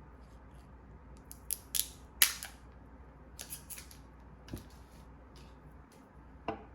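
A string of sharp clicks and snaps from small hard objects being handled, with the loudest snap just over two seconds in and a few softer clicks after it.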